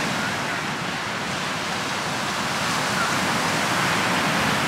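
Ocean surf breaking and washing up on a sandy beach: a steady rush of waves.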